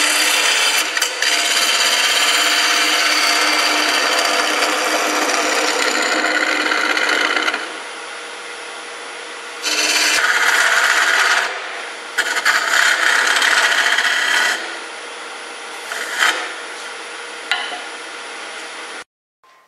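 Carbide cutter scraping out the inside of a spinning bowl of dry, punky wood on a wood lathe: a loud, rough cut for about seven seconds, then two shorter cuts about ten and twelve seconds in and a couple of brief touches. Between the cuts the lathe runs on with a steady hum.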